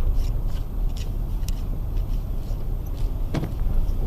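Car's own engine and road noise heard from inside the cabin: a steady low rumble, with a few scattered clicks and rattles and a sharper click about three and a half seconds in.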